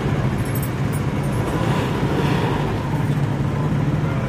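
Large 4x4 vehicle engines running with a steady low hum.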